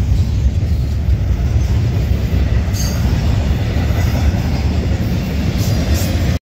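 Double-stack intermodal freight train rolling past: a steady rumble of steel wheels on rail, with brief high-pitched wheel squeals about three seconds in and again near the end. The sound cuts off abruptly just before the end.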